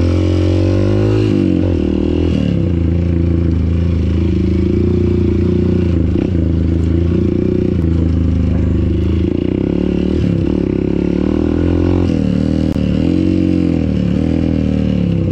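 Single-cylinder motorcycle engine being ridden and revved, its pitch dipping and climbing again as the throttle is closed and opened, most clearly about a second in and again near the end.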